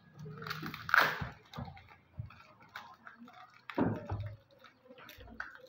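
Crinkling and rustling of a paper wrapper being peeled by hand off a small bolt. The loudest crackle comes about a second in, followed by lighter rustles and clicks.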